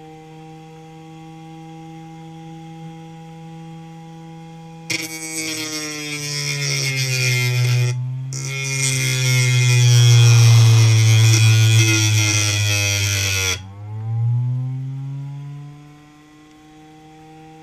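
Hard-drive spindle motor spinning a sandpaper-covered platter with a steady whine. About five seconds in, a rock is pressed against the sandpaper, and a loud, harsh grinding hiss joins the whine while the motor's pitch sinks under the load; the grinding breaks off briefly once. Partway through, the rock comes off and the whine climbs back up to speed.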